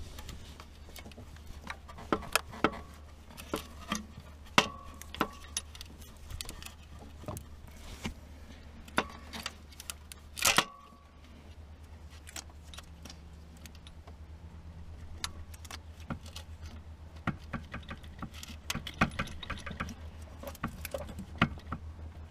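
Hand tools and metal parts clinking and knocking irregularly in a car's engine bay as the alternator is worked loose, some knocks ringing briefly, the loudest about ten seconds in, over a steady low hum.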